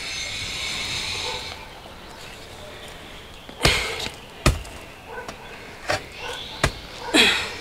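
A pick's metal head striking an adobe brick to split it: four sharp, separate blows in the second half, the first a little over halfway in.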